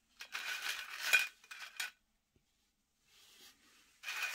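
Fried plantain chips clattering and rustling against each other and a ceramic plate as a hand shuffles them, in a spell of about a second and a half, a pause, then again near the end.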